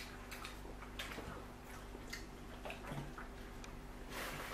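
Faint small clicks and rustling of a paper burger wrapper being handled. About four seconds in, a louder hissing rustle starts as a drink is sipped from a paper cup.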